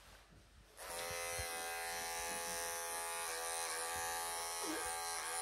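Small cordless electric pet trimmer switching on about a second in and buzzing steadily while tufts of fur are trimmed from a cat's front legs. Its pitch dips briefly a few times.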